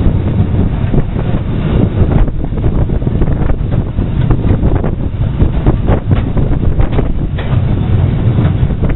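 Freight train hauled by the Beattie 2-4-0 well tank No. 30587 running along the line, heard from the open brake van coupled to it: a steady low running noise with irregular knocks and rattles, and heavy wind buffeting the microphone.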